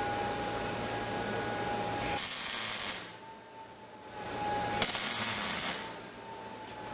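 Two short MIG tack welds, each about a second of crackling arc noise, about two seconds and five seconds in. A steady high tone sounds between the tacks.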